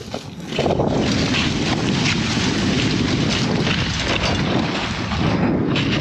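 Wind buffeting the microphone on a moving dog sled: a loud, steady rush that starts suddenly about half a second in.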